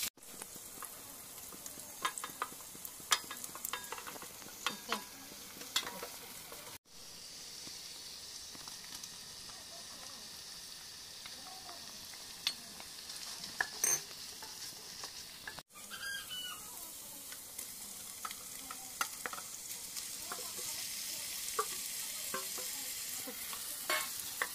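Vegetables and minced pork sizzling in hot oil in a stone-coated pot, stirred with a wooden spatula that scrapes and taps against the pan. The sound breaks off abruptly twice.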